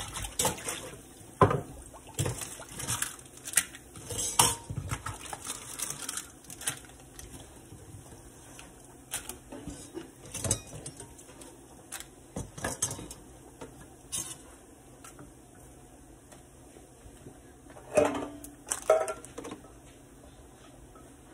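Kitchen dishes being handled: a metal pot lid and a bowl are set down and moved about on a wooden cutting board, making irregular clinks and knocks. They come thick and fast in the first several seconds, then thin out, with a short cluster near the end.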